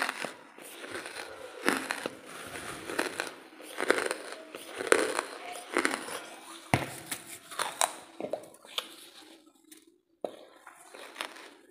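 Thin plastic bag crinkling as it is handled, with lumps of charcoal shifting and scraping inside it, in a run of irregular sharp crackles.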